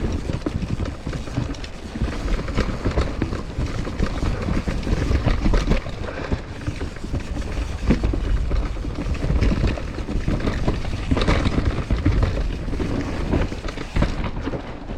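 Mountain bike riding fast down a dirt trail: tyres rolling over dirt and rocks, the bike rattling with many small clicks, and wind buffeting the microphone.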